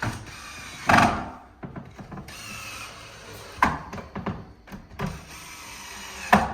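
Power screwdriver running in two short runs, driving the rail screws home, with a few sharp knocks from the cot parts being handled.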